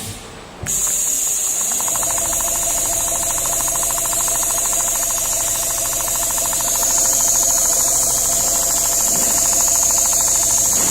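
Richpeace CNC sewing machine with a rotary head, sewing: the needle stitches in a fast, even rhythm from about two seconds in until near the end, over a steady high hiss that starts just under a second in.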